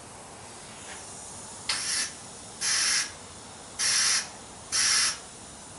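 Compressed-air blow gun giving four short hissing blasts of air, about a second apart, into an automatic transmission's fluid passages during an air check.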